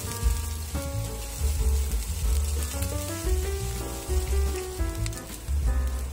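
Background music with a melody over a steady bass line, and under it the hiss of chopped red onion sizzling in oil in a pan.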